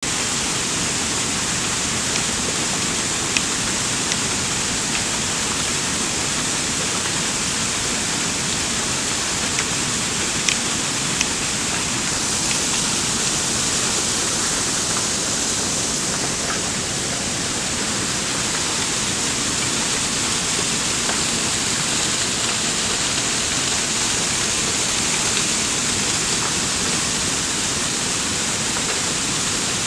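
Waterfall: a steady, unbroken rush of falling water, with a few brief faint clicks in the first half.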